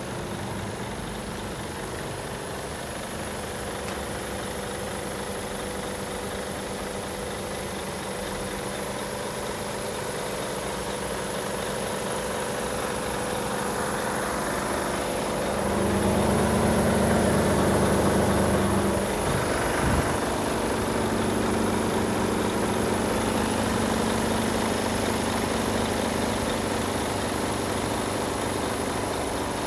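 Mercedes-Benz Actros 1840 tractor unit's straight-six diesel idling steadily, louder for a few seconds past the middle, with one short sharp knock about two-thirds of the way through.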